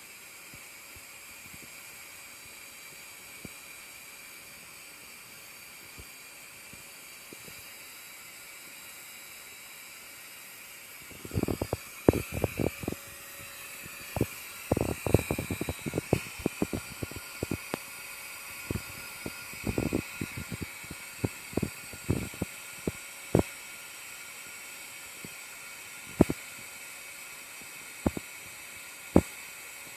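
Steady buzzing hum of bees at a hive. About a third of the way in, a run of loud, sharp knocks begins, dense for a while, then thinning to a few scattered ones near the end.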